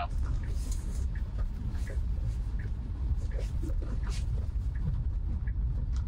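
Steady low tyre and road rumble inside an electric Tesla's cabin while driving on a snowy, slushy road, with faint scattered ticks.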